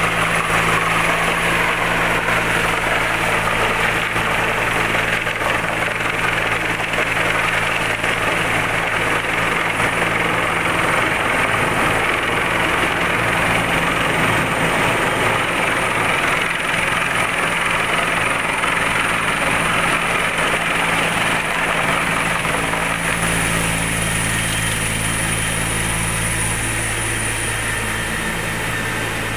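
Helicopter flying with a sling load on a long line: a steady low rotor hum with a thin high turbine whine over it. The low hum fades somewhat in the middle and comes back stronger about three quarters of the way through.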